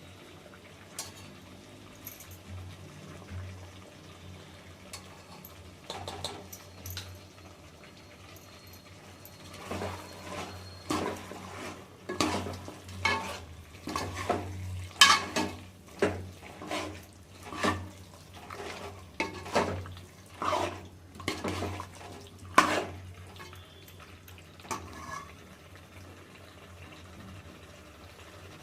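Washing up at a kitchen sink: water splashing, with utensils knocking and clattering about once a second through the middle of the stretch, the loudest around halfway.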